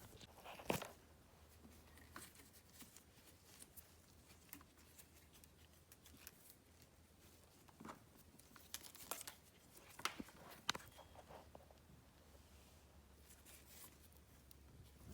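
Mostly near silence with faint, scattered rustles and clicks of cable and connector handling, the clearest about a second in and a cluster between eight and eleven seconds.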